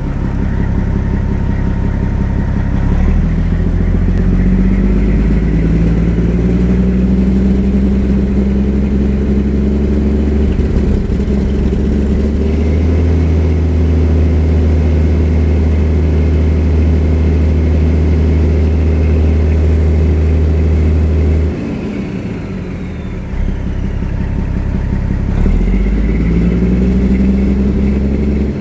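Detroit Diesel Series 60 12.7-litre inline-six diesel engine running: revved up about three seconds in and held at higher speed, dropping back around twenty-one seconds in, then revved again near the end. The owner puts its running problem down to a bad injector or water in the fuel.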